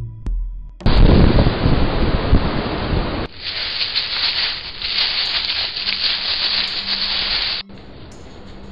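Storm noise on a trail camera's microphone. About a second in, a loud rushing rumble of wind buffeting the microphone starts suddenly, and after a couple of seconds it gives way to a steadier high hiss. Near the end it cuts off abruptly to a much quieter hiss.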